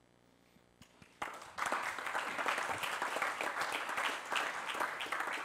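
Audience applause. It starts about a second in after a moment of near silence, quickly fills out into dense clapping, and keeps going.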